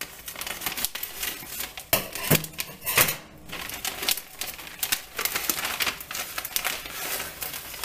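Scissors snipping through a plastic saltfish package, then the plastic bag crinkling as it is torn and pulled open: a run of quick clicks and rustles.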